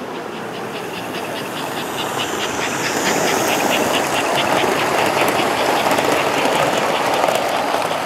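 S-gauge model train running past on layout track: a steady rumble with rapid fine clicking of the wheels over the rail joints, growing louder about two seconds in as the train comes close.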